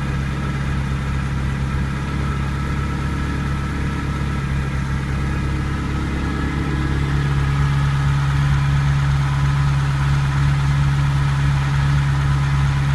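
Ferrari 308 Quattrovalvole's V8 idling steadily, a little louder from about seven seconds in. Its camshafts have been freshly timed on new aluminium pulleys, the state in which the owner reports the earlier ticking gone.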